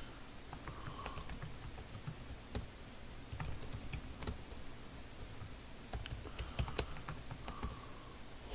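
Typing on a computer keyboard: faint, irregular key clicks with short pauses between them.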